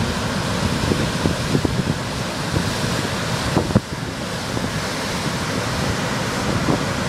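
Ocean surf breaking and washing over rocks at the foot of a sea cliff, a steady rush of water, with wind buffeting the microphone in short low thuds.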